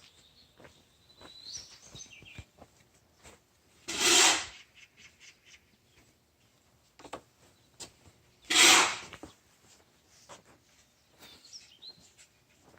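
Small birds chirping faintly, with two loud, short rasping rubs about four and a half seconds apart and a few light clicks.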